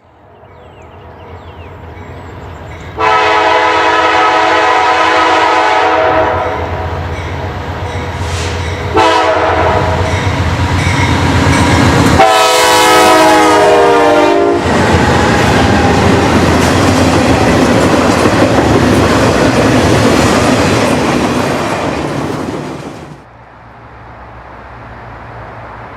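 Norfolk Southern freight locomotive sounding its multi-chime air horn in three blasts, a long one, a shorter one and another long one, as the train approaches and passes at speed. The engine and wheels on the rails follow, loud, and the noise drops suddenly near the end.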